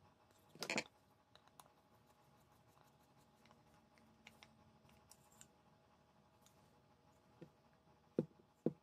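Faint handling of a walnut drawer front and a metal pull knob: a short scuff about a second in and scattered soft clicks, then three sharp light knocks near the end.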